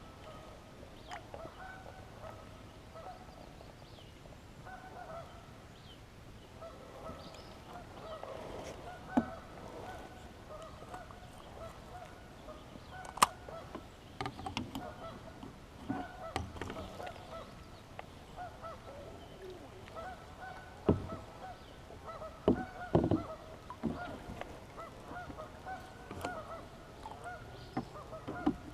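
Geese honking over and over, with a few sharp knocks now and then, the loudest about nine, thirteen and twenty-one seconds in.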